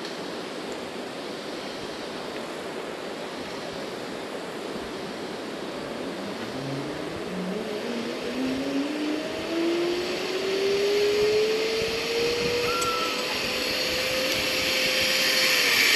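Zip-line trolley pulleys running along a steel cable: a whine that climbs steadily in pitch from about six seconds in as the rider picks up speed, then levels off. Under it runs a rush of wind and cable noise that grows louder.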